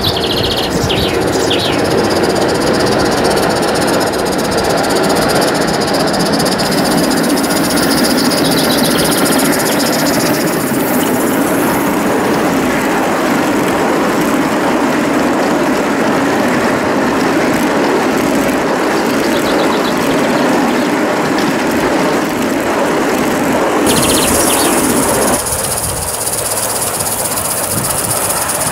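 Live-steam garden-scale Southern Pacific F4 2-10-2 locomotive running past, with the rolling clatter of its train of hopper wagons on the track. The sound changes abruptly about 25 seconds in.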